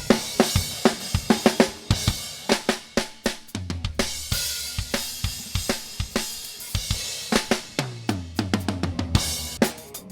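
Isolated live drum-kit track, with kick, snare, hi-hat and cymbals hitting in quick succession, played back through a DIY Calrec PQ1549 clone equaliser while its settings are tried out. A deep low ring swells under the hits twice, a little before the middle and again near the end.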